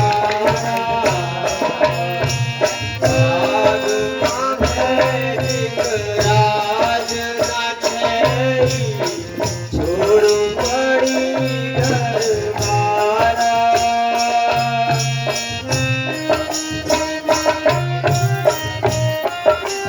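Folk music for a stage play: a gliding melody over a steady percussion beat with a rattling shaker.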